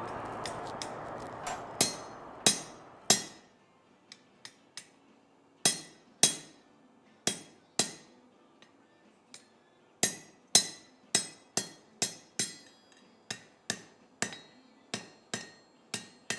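Blacksmith's hammer striking hot steel on an anvil with a ringing note, fullering the leaf-hook blank to mark where the stem meets the leaf. The blows come irregularly, about one to two a second, with lighter taps between. A steady rush of noise fades out over the first three seconds.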